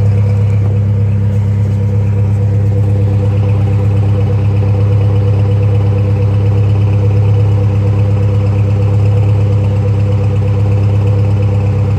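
Saab Aero engine idling steadily and sounding rough, just after a head gasket replacement. It is still mixing oil and coolant and smoking heavily, which the owner thinks may be the cylinder sleeve for piston number 3.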